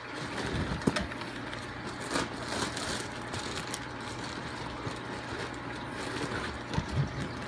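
Faint rustling and handling noise with a few soft knocks, over a steady low hum: a plastic fish-shipping bag being taken off, heard through a camera set face-down.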